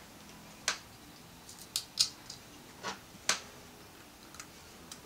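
Small clicks of a hex Allen key on a screw and a 3D-printed plastic extruder part as the last screw is fitted: about six sharp clicks, the loudest about two seconds in.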